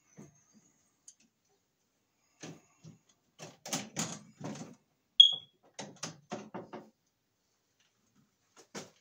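Knocks and clicks of hands and a tool working on wiring inside a residential breaker panel, in scattered bunches. About five seconds in comes a single short, high-pitched electronic beep, the loudest sound.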